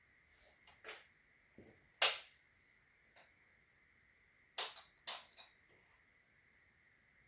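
A few sharp clicks and knocks of wooden toy track pieces being handled and set down on a wooden floor, the loudest about two seconds in and a quick pair near five seconds.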